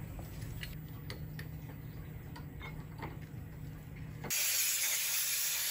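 Low steady hum with faint light metallic clicks of aluminium parts being handled at a mill vise. About four seconds in, a loud steady hiss cuts in abruptly.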